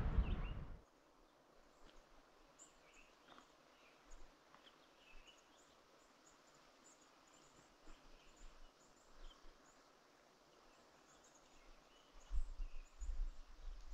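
A loud noise cuts off under a second in, leaving a faint outdoor background with scattered high chirps. About twelve seconds in, wind starts buffeting the microphone in low, uneven gusts.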